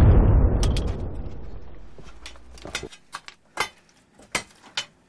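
Mine blast going off underground: a sudden loud bang, then a deep rumble that fades away over about three seconds, followed by a few scattered sharp clicks and knocks.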